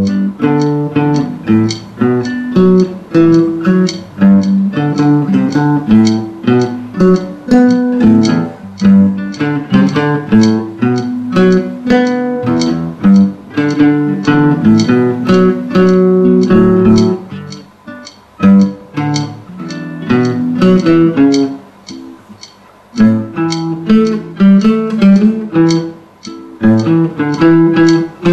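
Guitar played through a flanger effect, picking quick runs of single notes and chords, with two short breaks in the second half.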